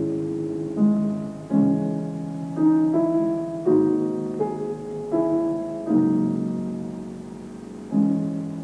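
Piano music: slow chords struck one after another, about eight in all, each ringing and fading before the next.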